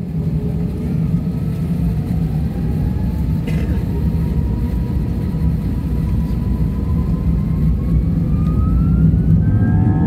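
IAE V2500 turbofan spooling up for takeoff, heard from inside the cabin: a steady low rumble under a fan whine that rises slowly in pitch, then climbs faster near the end.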